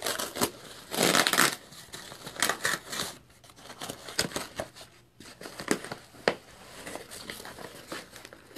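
A Priority Mail package and crumpled kraft packing paper being torn open and rustled by hand in irregular bursts, the loudest about a second in.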